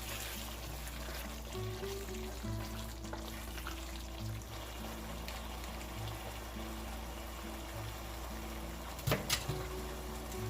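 Background music with a low note repeating at an even pace. Two short, sharp knocks come about nine seconds in.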